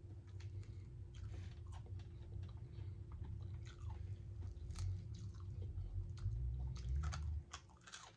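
Close-up chewing and crunching of crisp fried bone-in pinfish: a steady low rumble of chewing with many small crunchy clicks, easing off about seven and a half seconds in.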